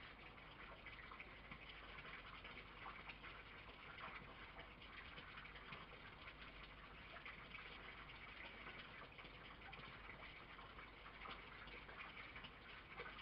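Near silence: a faint, steady hiss with a few soft ticks.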